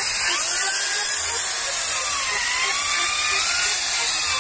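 Rotary brush on a handheld power tool spinning against a Yamaha Jupiter MX engine casing, scrubbing dirt out of its crevices. It gives a steady high hiss and a whine that slowly dips and rises in pitch.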